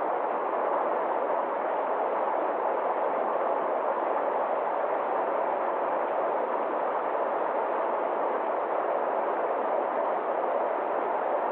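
Stream water rushing steadily over a small rocky cascade: an even, unbroken noise of flowing water.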